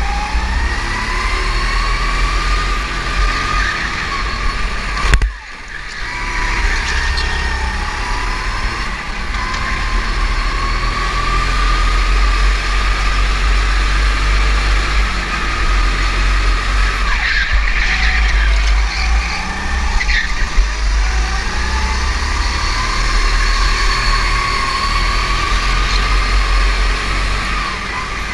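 Go-kart heard from on board at speed, its motor pitch rising along the straights and falling into the corners, over a heavy low rumble of vibration and wind. A sudden sharp knock about five seconds in, after which the sound briefly drops.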